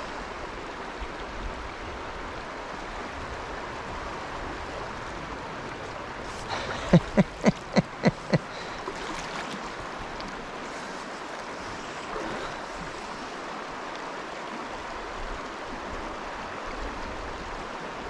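Creek water flowing and rippling steadily around a wading angler. About seven seconds in comes a quick run of six short pitched sounds, about three a second.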